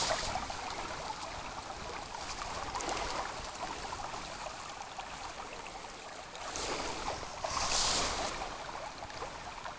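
Shallow creek water running over gravel and cobbles, a steady rushing, with two brief louder swells of hiss about two-thirds of the way through.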